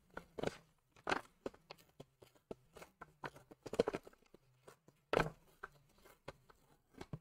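Thin masking paper crinkling and tearing by hand as a narrow strip is ripped off, an irregular run of crackles with the loudest rips about a second in, around four seconds and just after five seconds.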